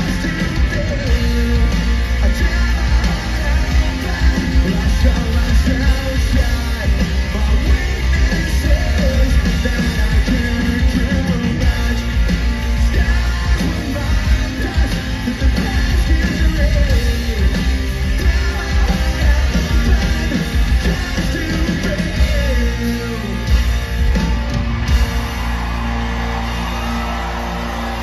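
Rock band playing live through a concert PA, heard from within the crowd: guitars, drums and a singing voice. About three-quarters of the way through, the drums stop and a held chord rings on.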